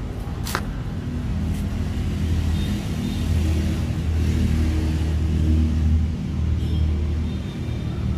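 Low, steady motor-vehicle engine rumble that swells louder for a few seconds mid-way and then eases back, with a short click about half a second in.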